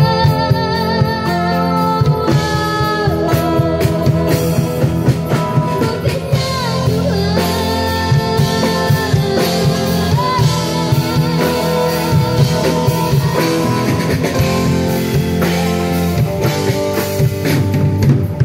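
A small live band plays a song: a girl sings into a microphone over acoustic guitar and a drum kit, holding a note with vibrato near the start.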